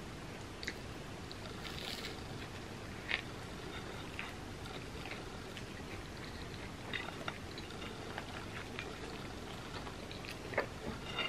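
Close-miked chewing of a grilled cheese sandwich dipped in tomato soup: faint wet mouth clicks and smacks over a steady background hiss, with a few sharper clicks about three seconds in and near the end.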